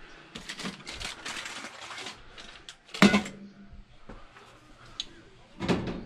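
Rustling and clattering of tools and refrigerant hoses being handled, with a sharp clank that rings briefly about three seconds in and a duller thud near the end.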